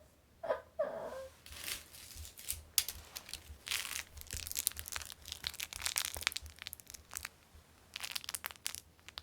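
Irregular bursts of crinkling and crunching, like paper or cardboard packaging being handled, with a brief voice-like sound about half a second in.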